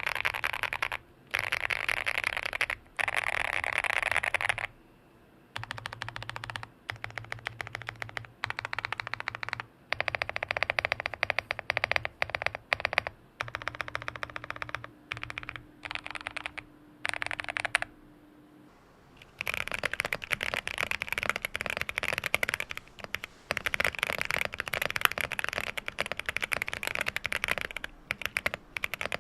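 QK65 mechanical keyboard with Boba U4T tactile switches on a POM plate: first the lubed switches mashed in quick bursts of random keys and modifiers, with short breaks between bursts. About 19 seconds in, after a brief pause, steady fast typing starts on stock, unlubed switches, the board set directly on the desk without a deskmat.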